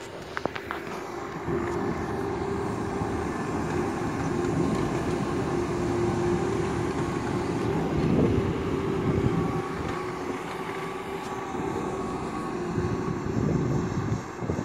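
Pikes Peak cog railway diesel railcar passing close by on its way down the mountain: a steady engine and drive drone with a humming tone. It swells to its loudest about halfway through, then eases slightly as the car moves away.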